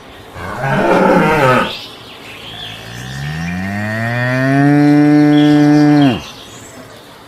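Cow mooing twice: a short, rough call, then a long moo that rises in pitch, holds steady and cuts off suddenly.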